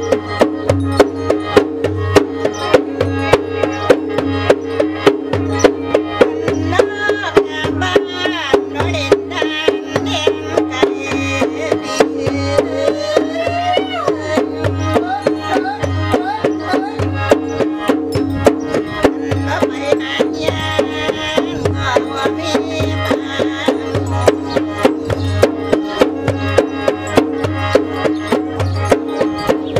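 Isan saeng ritual music: barrel hand drums beat a steady quick rhythm of about three strokes a second over a sustained khaen drone. A sliding higher melody line rises above it in the middle stretch.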